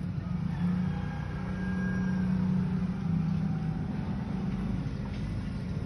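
A steady low motor hum, like an engine running, with a droning tone that drops slightly in pitch about three seconds in.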